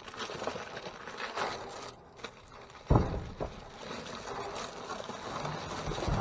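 Plastic bags and packaging rustling and crinkling as a gloved hand rummages through discarded produce, with a sharp thump about three seconds in.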